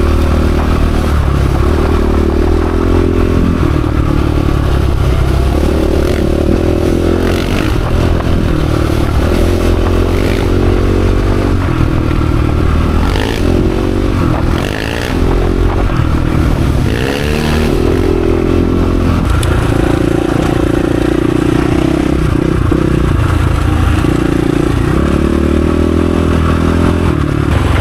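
Dirt bike engine running hard, its pitch repeatedly climbing and dropping as the throttle is worked, with a brief easing off about fifteen seconds in. Occasional clattering knocks come through over the engine.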